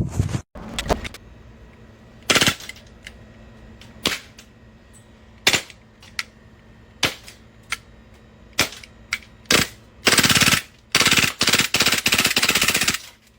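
Elite Force Glock 18C gas blowback airsoft pistol firing: about nine single shots spaced a second or so apart, then several rapid full-auto bursts near the end.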